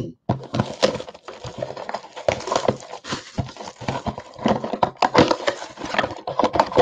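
Plastic shrink wrap being torn and peeled off a sealed trading-card box, crinkling and crackling in quick irregular clicks as the box is turned in the hands.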